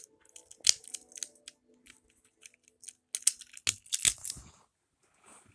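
Small fidget toys and their plastic packaging being handled: scattered sharp clicks and short rustling scrapes, busiest a little past the middle, over faint steady background tones.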